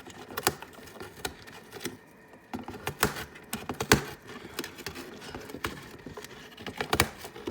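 A parrot chewing and shredding a chew toy with its beak: an irregular run of crunching clicks and cracks, the loudest about four seconds in.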